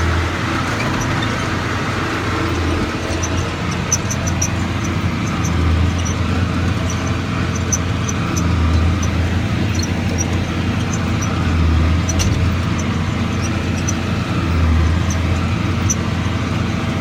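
John Deere 4850 tractor's six-cylinder diesel running steadily under load, heard from inside the cab, with a low swell in the drone about every three seconds.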